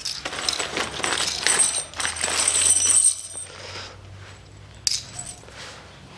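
A handful of steel bolts and clip nuts tipped out onto a concrete floor, clinking and jingling for about three seconds, with one more clink about five seconds in.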